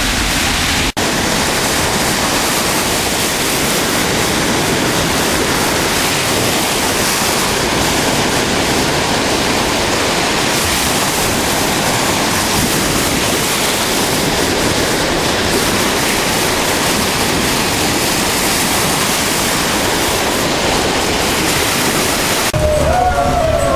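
Loud, steady rush of floodwater, broken by a brief drop about a second in.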